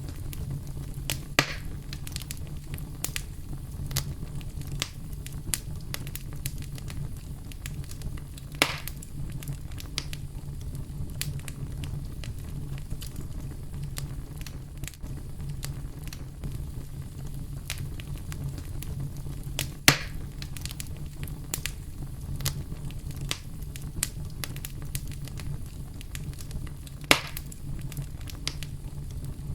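Campfire crackling with frequent small snaps and four louder pops, over a steady low brown-noise rumble.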